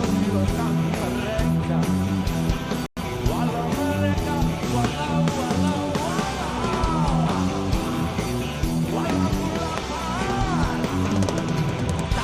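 Background rock-style song with guitar and a singing voice; the sound cuts out for an instant about three seconds in.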